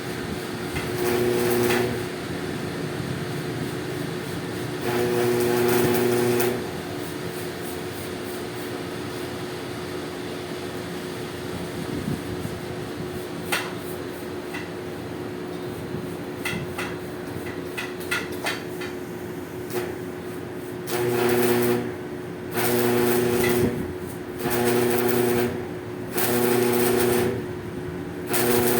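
A motor-driven machine switched on and off in short runs of a second or two, twice early and then five times in quick succession near the end, over a steady hum, with scattered clicks in between.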